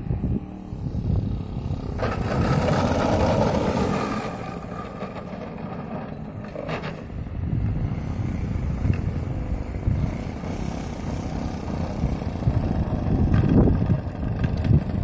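Engine of a radio-controlled Sbach 342 model aircraft running at low throttle as the plane lands and rolls along the runway. It is louder for a couple of seconds starting about two seconds in. Wind gusts buffet the microphone near the end.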